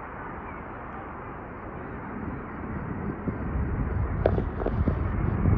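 Outdoor background noise on a phone microphone, with a low rumble that swells in the second half and a few light knocks near the end.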